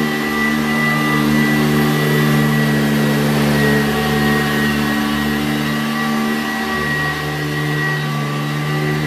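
Sanitaire SC887B-2 commercial upright vacuum cleaner with its 7-amp Ametek Lamb motor running steadily: a deep hum under a thin high whine.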